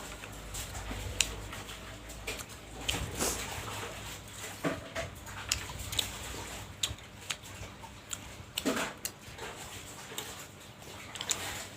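Close-miked eating sounds: a person chewing bakso meatballs, with irregular wet smacks and short mouth clicks.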